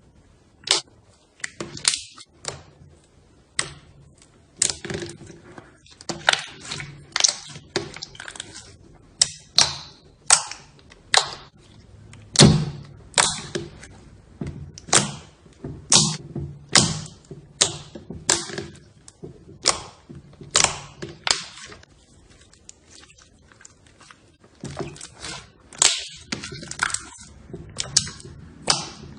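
Slime being pressed and poked, giving a long string of sharp pops and clicks, roughly one or two a second at uneven spacing.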